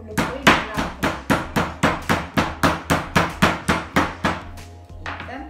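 Metal meat mallet pounding a raw chicken breast flat on a cutting board: about twenty quick, even strikes, roughly five a second, stopping about four and a half seconds in.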